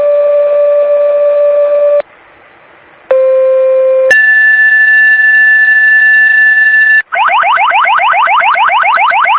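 Fire dispatch radio tone-out: a held paging tone that ends about two seconds in, then after a short pause a second two-tone page, one second of a low tone stepping up to a higher tone held about three seconds. It is followed by a rapid alert warble of rising chirps, about eight a second, that signals the dispatch announcement to follow.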